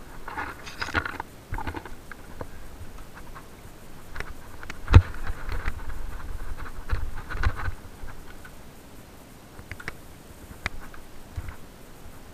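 Mountain bike on a rocky dirt singletrack: tyres scraping over dirt and stone and the bike rattling in bursts, with scattered clicks and one sharp knock about five seconds in, the loudest sound.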